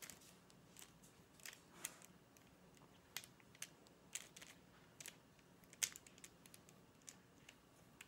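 Faint, irregular plastic clicks and clacks of a 1x3x3 puzzle cube's layers being turned and flipped by hand.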